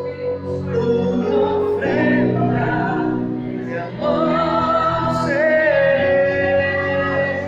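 Worship song: singing over instrumental accompaniment, with long held notes that waver in pitch.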